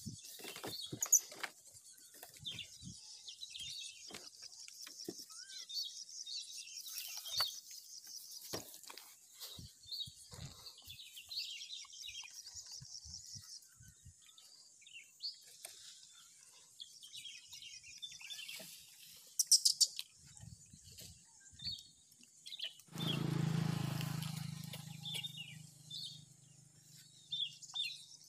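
Outdoor ambience of small birds chirping over a steady high insect drone, with scattered light clicks. Near the end a low hum comes in and runs on, loudest as it starts.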